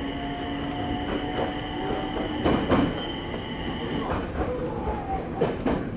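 E721 series electric train running slowly over station pointwork, heard from inside the cab: steady running noise with a high, even whine, and the wheels knocking over rail joints and points in two pairs of knocks, about two and a half and five and a half seconds in.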